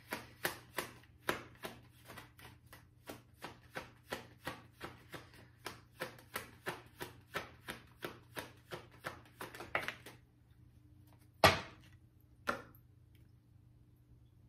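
A tarot deck being shuffled by hand, the cards slapping together in a quick, even rhythm of about three or four a second. The shuffling stops about ten seconds in, and two louder single sounds follow about a second apart.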